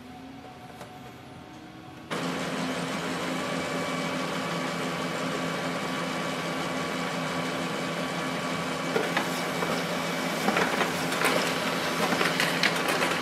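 Brother MFC-L2750DW laser printer starting a print job about two seconds in: a steady motor-and-fan drone with a low hum. From about nine seconds on, clicks and rattles join it as the page is fed through.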